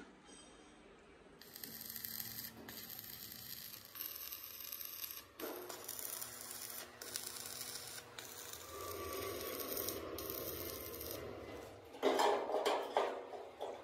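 Stick arc welding on sheet steel: the electrode's arc crackles and sizzles in runs of a second or two, with short breaks between welds. Near the end comes a louder burst of knocks on the metal.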